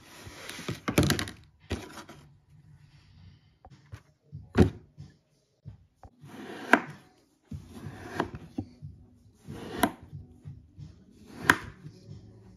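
Kinetic sand handled and cut: a soft gritty rustle as a glass mould is pulled off the packed sand, a single knock, then a kitchen knife slicing down through the sand four times, each cut ending in a sharp tap of the blade on the plastic tray, about one and a half seconds apart.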